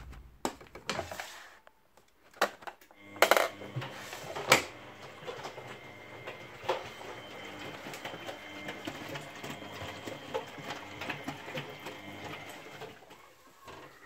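Miele Novotronic W971 front-loading washing machine on a wash cycle, with freshly replaced shock absorbers: after a few scattered clicks, the drum motor starts about three seconds in and turns the drum with a steady hum and whine, with two loud knocks soon after it starts, then stops near the end.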